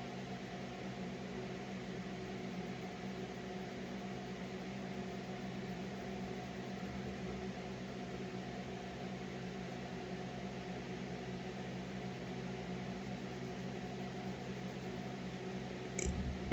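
Steady hum of a mains-powered electric motor running, several fixed low tones over a faint hiss. A short knock near the end.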